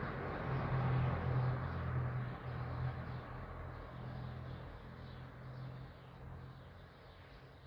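S3b motor siren in the last of its run-down, a low tone coasting and fading away steadily.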